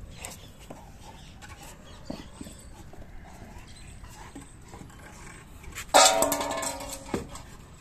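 A wooden branch carried by a dog scrapes and knocks on concrete, then about six seconds in strikes a steel dog bowl, which rings loudly and dies away over about a second, with a smaller knock just after.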